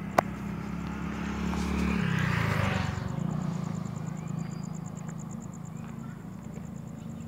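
A motor vehicle passes on the road. Its engine hum and tyre noise swell to a peak two to three seconds in, the engine's pitch drops as it goes by, and then it fades. There is a sharp click just after the start, and a faint, fast, even ticking sits high above it.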